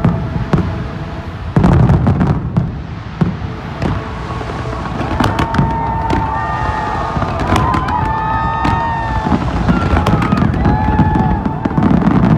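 Fireworks display: a dense run of bangs and crackling bursts over a steady low rumble. From about five seconds in, several whistling tones glide up and down for some seconds.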